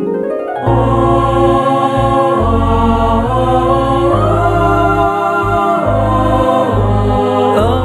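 Instrumental interlude of a nasheed backing track, with sustained choir-like chords over deep bass notes that change about once a second. It swells in fully just under a second in, and a wavering vocal line starts near the end.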